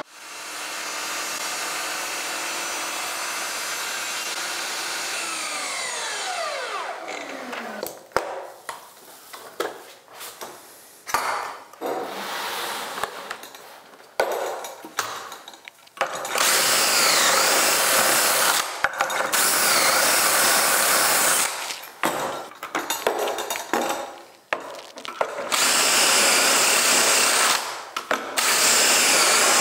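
A DeWalt sliding miter saw runs steadily for about six seconds, then winds down with a whine falling in pitch. After a stretch of handling clatter, a cordless DeWalt drill bores pocket holes through a pocket-hole jig into trim boards, in four runs of a few seconds each.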